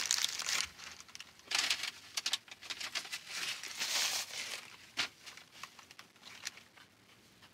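Paper sandwich wrapper crinkling and a paper napkin rustling as it wipes the mouth, in four or five short bursts with quieter pauses between; the loudest rustle comes about four seconds in.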